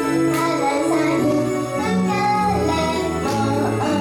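A girl singing an upbeat idol-pop song into a microphone over a loud backing track.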